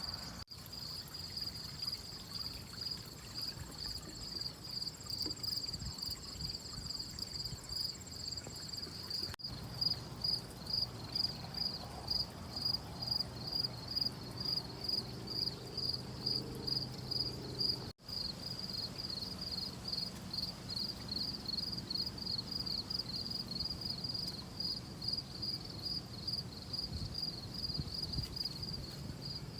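Insects chirping in a steady, rapidly pulsing high trill, with a fainter, higher second trill in the first third and a low background rumble beneath. The sound drops out briefly about nine and eighteen seconds in.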